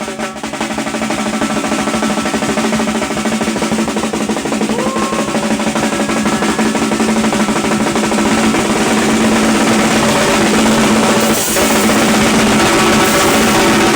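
Drum kit played in a fast, continuous roll, imitating the beating of a helicopter's rotor. It builds over the first couple of seconds and then stays loud, with a brief dip about eleven seconds in.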